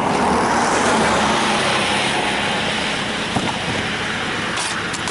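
Car on the move: a steady rush of road and engine noise, a little louder in the first second or two.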